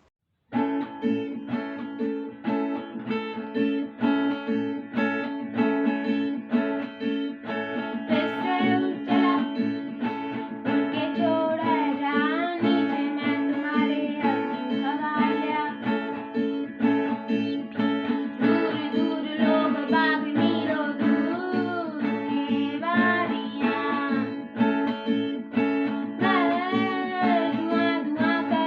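Music: acoustic guitar playing a steady rhythm, with a voice singing over it from about eight seconds in.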